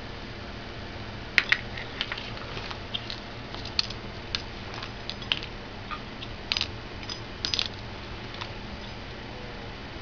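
Irregular light clinks and taps of a small metal object being batted about by a cat, about fifteen in all, some coming in quick clusters.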